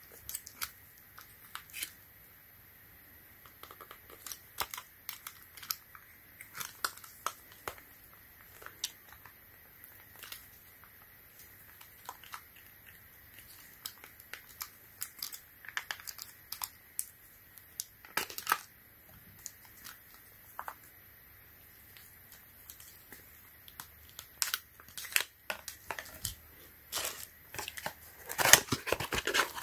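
Clear hard-plastic phone case clicking and tapping as it is handled and pressed onto a folding phone, in scattered, irregular sharp clicks. Near the end, packaging rustles and crinkles densely as a case box is opened.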